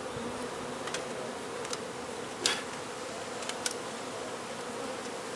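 Mass of honey bees buzzing in a steady, even drone from an opened hive, with a few light clicks, the sharpest about two and a half seconds in.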